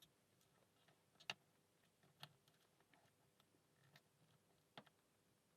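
Faint, sparse metallic clicks of a lock pick and tension wrench working the pins of an Alpha 1000-15 padlock, with three sharper clicks about a second, two seconds and nearly five seconds in.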